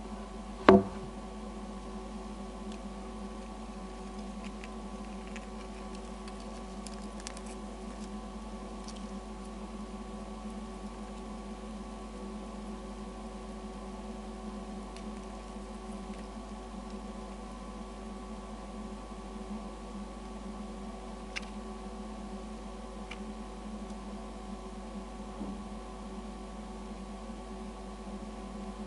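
A steady machine hum holding several pitches, with one sharp knock just under a second in and a few faint ticks later.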